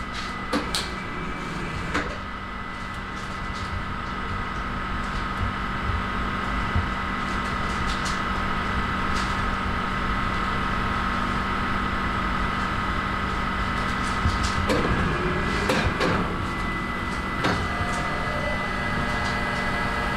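Baumkuchen oven running with a steady mechanical hum. Over it come a few clicks and knocks from a scraper working the batter tray, the busiest stretch about fifteen to sixteen seconds in.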